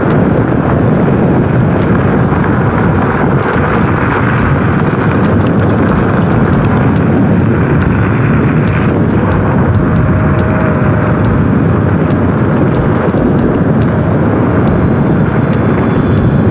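Steady, loud rush of wind over the microphone with tyre noise from a Kaabo Wolf Warrior X electric scooter being ridden along a gravel and dirt track, with scattered small ticks.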